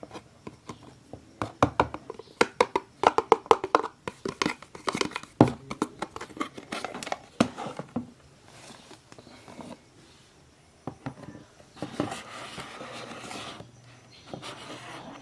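Hands handling packaging: a quick, irregular run of clicks, taps and rustles, then a couple of seconds of steady crinkling near the end.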